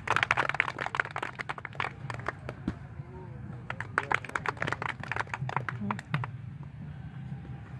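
Onlookers clapping irregularly in two quick runs, the first during the opening couple of seconds and the second around the middle, with crowd voices underneath.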